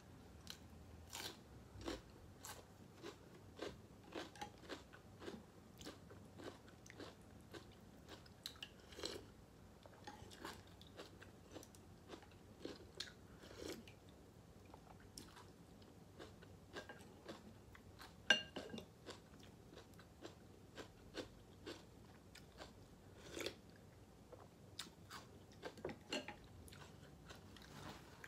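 Close-miked chewing and mouth sounds of someone eating pho: irregular soft clicks and smacks, one or two a second, with one louder sharp click about two-thirds of the way through.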